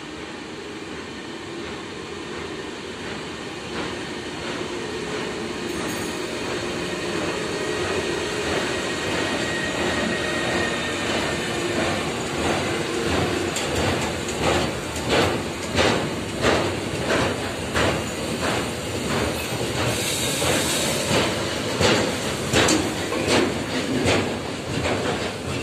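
Electric locomotive hauling a long train of loaded car-carrier wagons slowly past, growing louder as it comes near. From about halfway the wheels clack over the rail joints in an even rhythm, roughly one or two clacks a second.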